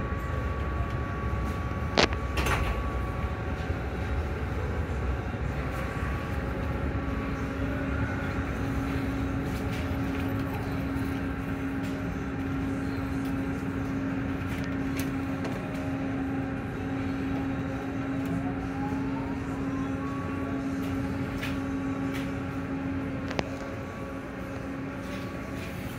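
Automatic tunnel car wash machinery running: a steady mechanical rumble with a sharp knock about two seconds in. A steady hum comes in at about seven seconds and stops near twenty-one, with a short rising whine shortly before it stops.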